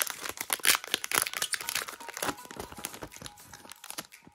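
Foil wrapper of a Pokémon trading card booster pack crinkling and tearing as it is ripped open by hand. The crackles are dense and irregular, thinning out near the end.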